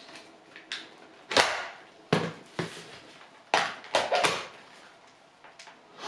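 Hard plastic clicks and knocks of the Shark IZ320EUT cordless stick vacuum's swappable battery pack being pulled out and a fresh one latched in after the first battery ran flat. There are about eight sharp clicks, spaced irregularly.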